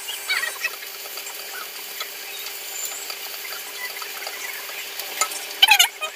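Wooden spatula scraping and stirring onions in a non-stick frying pan over a steady sizzle, with a few short squeaks, the loudest near the end.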